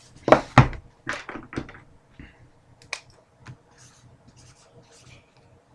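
Sealed trading-card box being opened and handled: a few sharp clicks and scrapes of cardboard and plastic wrap in the first couple of seconds, then fainter scattered scrapes.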